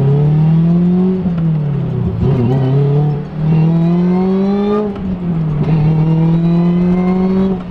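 Supercharged four-cylinder Lotus Elise engine accelerating hard through the gears. The revs climb, drop at an upshift about a second in, climb again, drop at a second upshift near five seconds, then pull once more. The supercharger's whine rises along with the revs.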